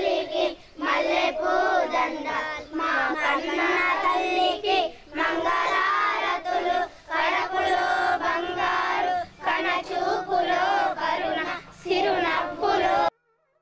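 A group of children chanting together in short rhythmic phrases of about a second each, with brief pauses between them; the chanting cuts off abruptly near the end.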